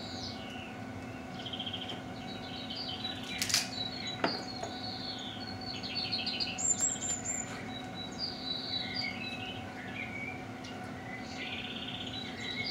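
Songbirds chirping and trilling, several overlapping calls and short repeated trills, over a steady low hum. A couple of sharp clicks come about three and a half and four seconds in.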